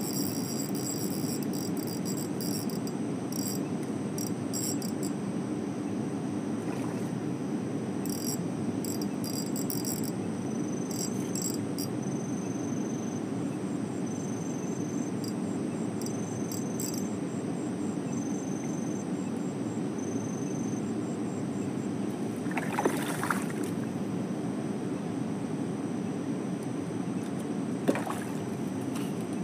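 Steady rush of a river flowing over rocks, with high insect chirring in broken bursts over the first two-thirds. Two short splashes come near the end, the second from a hooked fish thrashing at the surface as it is pulled to the bank.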